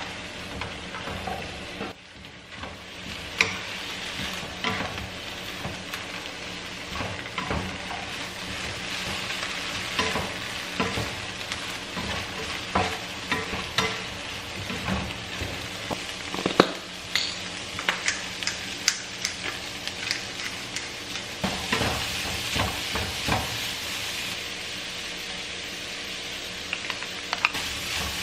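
Food sizzling as it fries in a pan, with frequent irregular clicks and scrapes of a utensil stirring it.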